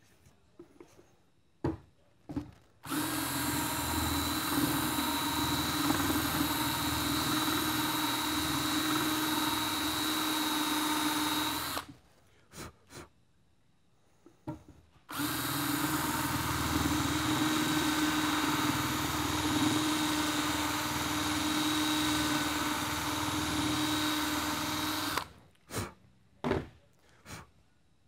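DeWalt cordless drill spinning a countersink bit into the plastic cap at the bottom of a prosthetic socket's lock. It runs at a steady whine in two long runs of about nine seconds each, with a pause of about three seconds between them. A few short clicks and knocks come before, between and after the runs.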